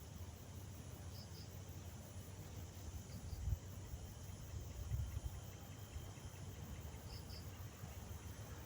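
Insects, likely crickets, chirping in short paired pulses three times, over a low rumble with two dull thumps midway.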